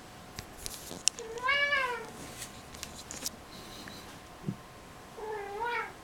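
Male cat meowing twice while humping a hat: a drawn-out call that rises and falls about a second and a half in, and a shorter wavering call near the end. Faint rustles and a soft knock between the calls.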